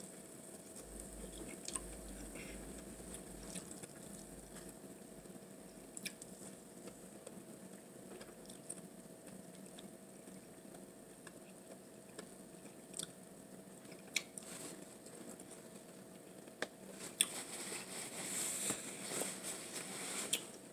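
Faint close-miked chewing of food, with scattered small sharp clicks and a louder spell of noise near the end.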